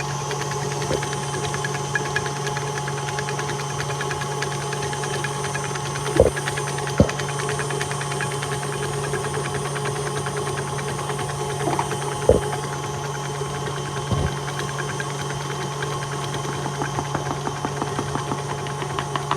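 Electric mixer running steadily, its beaters creaming frosting in a bowl, with a few sharp knocks and a faster rhythmic clatter building near the end.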